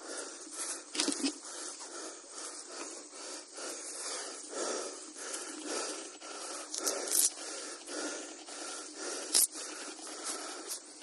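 A person breathing heavily, breath after breath, close to the microphone, with rustling and a few sharp clicks from handling, the loudest about nine seconds in.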